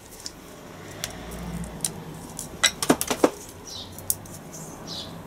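Light metallic clicks and clinks of R380 gearbox parts being handled as a needle bearing and gear are worked off the mainshaft, with a quick run of sharp ringing clinks about three seconds in.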